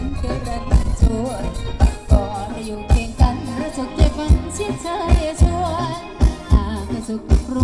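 Live Thai ramwong band music: a singer's wavering melody over a driving drum beat of about two strong strokes a second.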